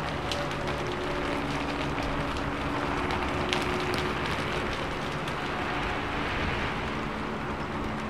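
Steady rainfall: an even hiss with scattered sharper drop hits.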